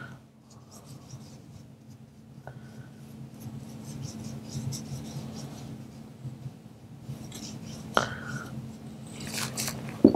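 A paintbrush stroking purple acrylic paint onto paper along a tape edge: faint, scratchy rubbing. A low steady hum runs underneath, and there is a single click about eight seconds in.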